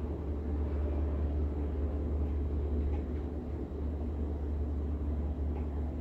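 Steady low background rumble, with a few faint, brief higher sounds.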